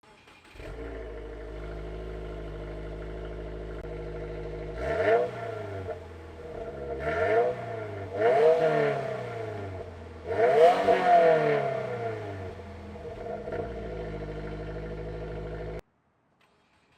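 2022+ Subaru WRX with its stock exhaust: the 2.4-litre turbocharged flat-four idles steadily, is blipped up four times, the last rev the longest, then settles back to idle. The sound cuts off abruptly near the end.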